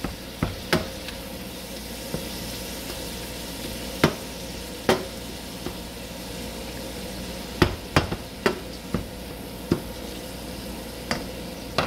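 Ground beef sizzling in a frying pan while a plastic meat chopper mashes and breaks it up, the tool knocking sharply against the pan bottom about ten times at irregular intervals.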